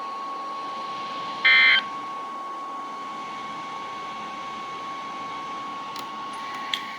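Midland WR120 weather radio sending one short, loud burst of electronic data tones about a second and a half in, of the kind that ends a weather radio warning broadcast, over a steady faint high whine.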